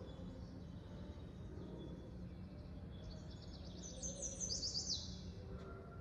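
Recorded song of a yellow warbler played over loudspeakers: one quick phrase of high, sweet notes about three seconds in, loudest near its end, over a low steady hum.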